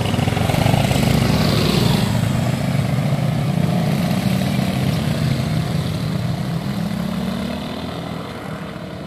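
A motor vehicle's engine running close by, loudest about a second in and slowly fading away.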